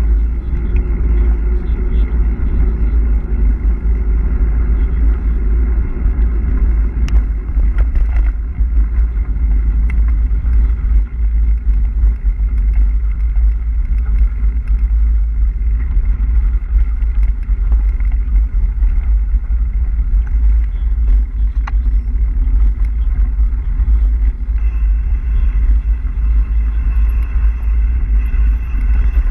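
Wind buffeting the microphone in a loud, steady low rumble, over the crunch of mountain bike tyres rolling on a gravel track, with a few sharp knocks from the bike going over bumps.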